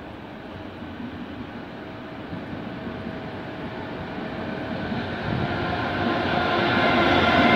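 Trenitalia E402B electric locomotive hauling a passenger train, approaching: its running noise and a steady whine grow evenly louder as it nears.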